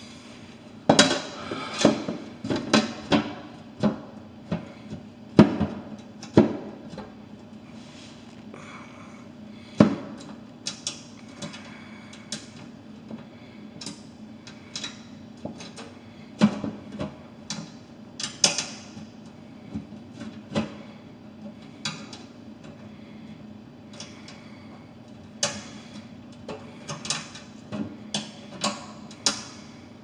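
Metal bottom cover panel of a drinking fountain being handled and fitted back into place: irregular metallic knocks and clatters, over a low steady hum.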